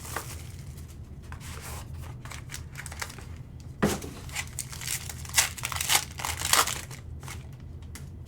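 Trading card pack wrapper being torn open and crinkled, with the cards handled, in many short rustles and clicks that grow busiest between about four and seven seconds in. A single knock about four seconds in.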